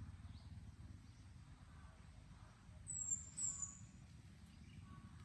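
A bird gives two short, high, falling calls about three seconds in, over a faint steady low rumble of ambient background.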